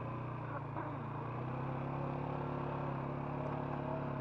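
Four-wheeler (ATV) engine running steadily while the machine is driven along, its pitch lifting slightly about a second and a half in.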